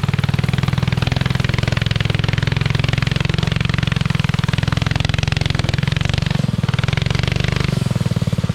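A mini trike's small single-cylinder four-stroke Honda GX-type engine running under throttle on a trail ride, with a steady pulsing exhaust note; the note dips and changes briefly about six to eight seconds in.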